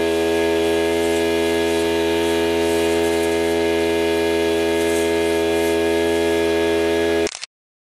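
A steady engine drone holds one unchanging pitch with many overtones, then cuts out completely for about half a second near the end.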